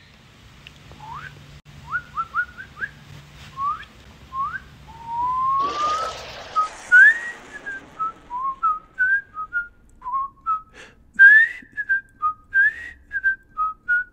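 A person whistling a string of short upward-sliding notes, with one longer rising glide about five seconds in. A brief hiss comes around six seconds in.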